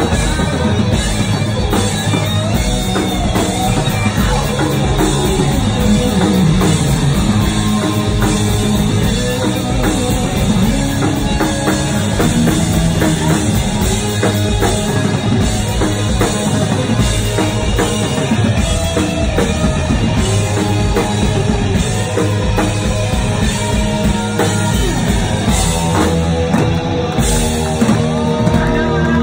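Live rock band playing loud and without a break: drum kit, electric bass and electric guitar.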